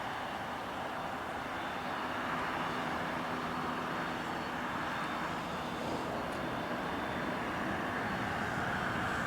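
Jet engines of a Boeing 737-800 (CFM56 turbofans), a steady rush of engine noise with a faint steady whine, growing a little louder about two seconds in.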